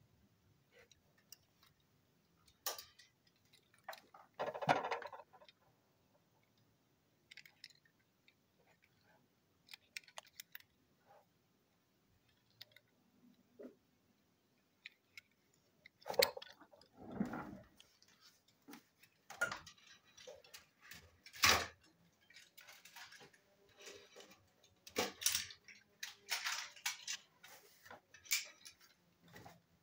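Handling noise as small toy cars are turned over in the fingers: scattered clicks, light taps and short rustles, sparse at first and busier in the second half.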